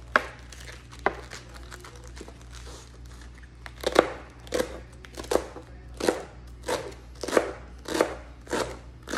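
Chef's knife slicing through rolled-up cabbage leaves onto a plastic cutting board: two single cuts at the start, then from about four seconds in a steady run of strokes, roughly three every two seconds.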